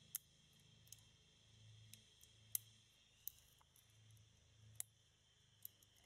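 Near silence broken by faint, irregular clicks, about seven in all, from a Sparrows Euro Hybrid pick working the spring-loaded sliders in the keyway of an OnGuard Bulldog ATB 8011 U-lock held under tension.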